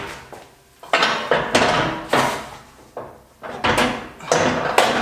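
Steel parts of an ARB swing-arm tire carrier clanking and rattling against the rear bar as it is handled and positioned, in three spells of sharp metallic knocks.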